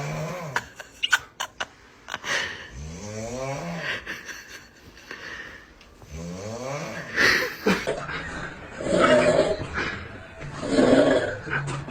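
Snoring: several drawn-out, pitched snores that rise in pitch, followed later by three noisier, rougher snores about two seconds apart. A cluster of sharp clicks comes about a second in.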